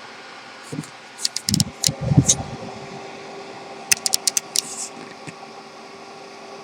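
Knocks and sharp clicks of objects being handled, in two bunches, one about a second in and one about four seconds in, over a steady fan hum.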